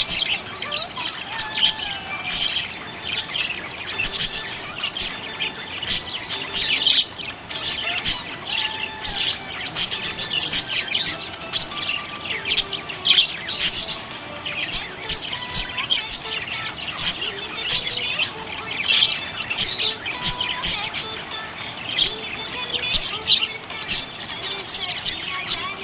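Budgerigars chirping and warbling without a break: a dense stream of short, high chirps with brief squeaky trills woven through.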